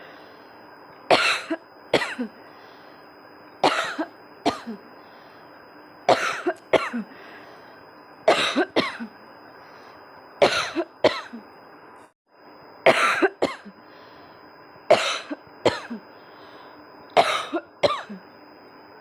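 A woman coughing on purpose in repeated fits, about one every two seconds, each a hard cough followed by a weaker one. The sound drops out briefly about twelve seconds in.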